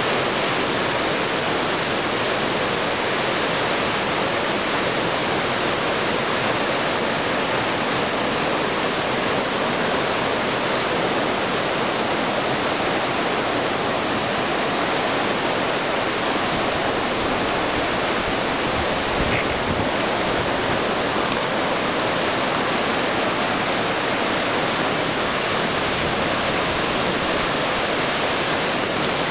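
Rushing whitewater: the steady, even rush of a river's rapids or falls.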